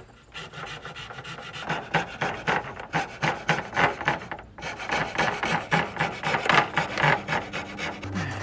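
Coping saw cutting by hand through the end of a white crown molding, its thin blade rasping in rapid back-and-forth strokes, several a second, with two short pauses. He is coping the profile and back-cutting it at an angle so the piece will fit against the adjoining crown at an inside corner.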